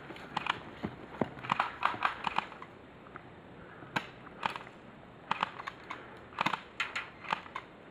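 Airsoft guns firing: irregular sharp pops and clicks, some single and some in quick clusters, with the loudest shots about four seconds in and again about two seconds later.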